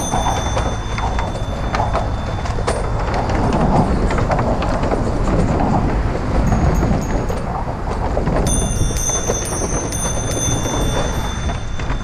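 Bicycle tyres rolling over a wooden plank deck, a steady rapid clatter of boards under the wheels, over a low wind rumble on a helmet-mounted camera's microphone.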